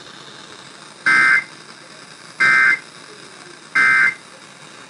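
Emergency Alert System end-of-message (EOM) data bursts: three short, loud two-tone digital bursts, evenly spaced about a second and a half apart. They signal the end of the alert, here a Required Weekly Test relayed over the IPAWS feed.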